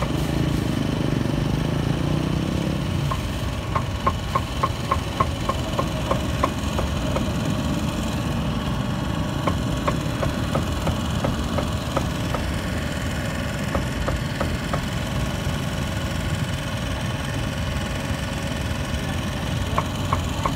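Cleaver chopping on a wooden block: a quick run of sharp strikes, about three to four a second, then slower scattered chops, with a few more near the end. Under it a steady engine drone runs throughout.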